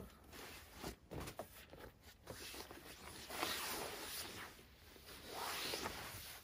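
Fabric rustling and sliding as a person scoots across bedding and a cloth cover to climb out of an SUV's rear cargo area. There are a few light knocks in the first second or so, then two longer swishing stretches in the second half.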